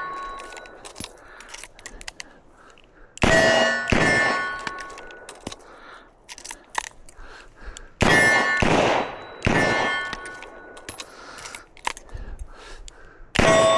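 Smith & Wesson 627 revolver firing in pairs of shots, each shot followed by a metallic ringing. Between the pairs come faint small clicks of reloading.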